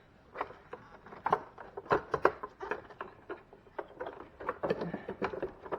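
Hard plastic parts of a refrigerator ice maker being handled and fitted by hand: a string of irregular clicks and knocks, a few of them sharper than the rest.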